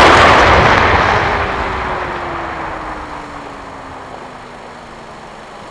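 A 20-foot container of 60-gram fireworks rockets (hazard class 1.1G, about 3.8 tonnes net explosive content) going up in a mass explosion. The blast's roar is loudest at the start and dies away slowly over several seconds, with a faint whistle falling slowly in pitch beneath it.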